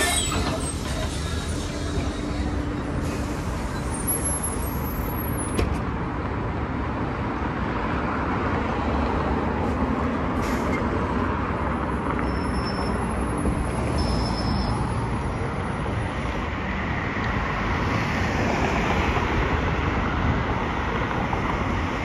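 Steady city traffic noise at a bus stop, with a Foton eBus U12 electric city bus standing close by.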